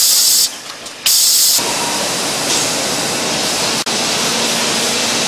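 Eyedrop filling and capping machine's pneumatics releasing short bursts of compressed-air hiss, about half a second each, twice in the first second and a half. After that a steady, even noise takes over.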